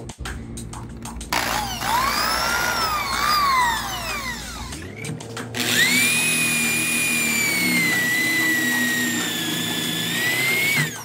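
Electric drill boring through a doweling jig's guide bushing into a wooden board. For a few seconds its motor whine rises and falls in pitch. After a short break it settles into a steady whine for about five seconds while the bit cuts, then stops abruptly near the end.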